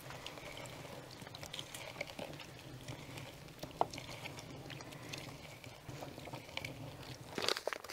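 Half a lemon being pressed and twisted on a plastic hand citrus juicer: wet squeezing with scattered small clicks of the fruit against the plastic, louder clicks near the end.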